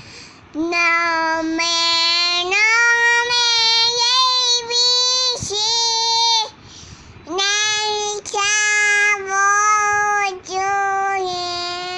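A young child singing loudly in long held notes, pausing briefly about six and a half seconds in.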